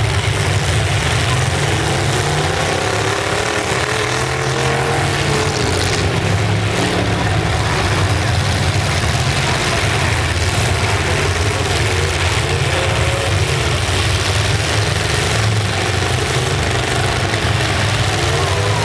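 Engines of several full-size pickup trucks running together in a demolition derby, a steady deep rumble with engine pitches rising and falling as drivers rev.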